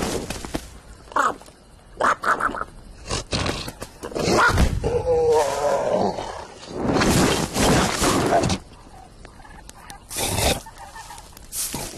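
Cartoon sound effects: a run of short noisy whooshes and knocks, with a warbling, gobbling animal-like cry about five seconds in. A long noisy swell follows near the end.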